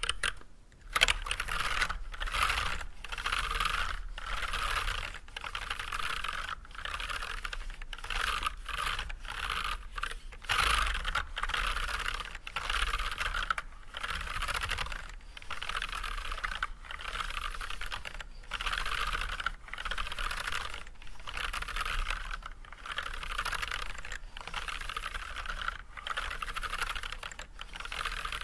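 Steady normal-speed typing on a mechanical keyboard with Everglide Red 67g linear switches, unlubricated but fitted with switch films, under white PBT keycaps. The keystrokes come in quick runs of about a second with brief pauses between them.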